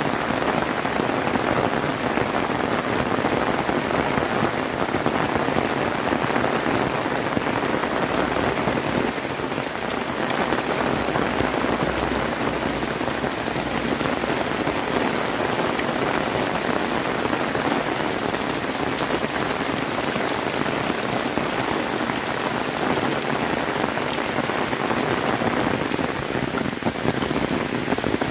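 Heavy rain pouring down and pattering on surfaces in a steady, dense hiss.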